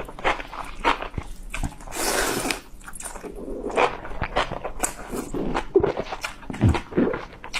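Close-miked eating sounds: wet chewing and mouth clicks and smacks in quick succession, with a longer noisy slurp about two seconds in.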